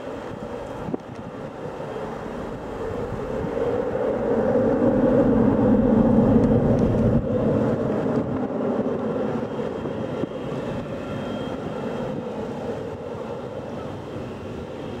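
Jet engines of a twin-engine airliner at climb-out thrust, a steady rumble that swells to its loudest about five to seven seconds in and then slowly fades as the aircraft climbs away.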